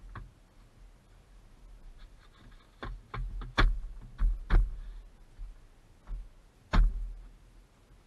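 Plastic interior pillar trim panel of a 2015 VW Beetle being pressed by hand and snapped onto its clips: about six sharp knocks and snaps at irregular spacing, the loudest around the middle and one near the end.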